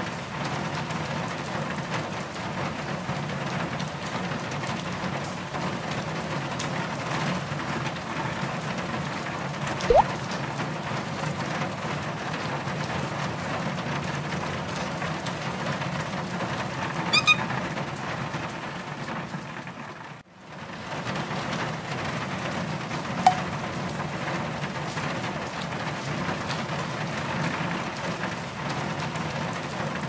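Steady rain falling on a car's roof and windshield, heard from inside the car. There is a short rising chirp about ten seconds in, a few faint ticks, and a brief dip about twenty seconds in.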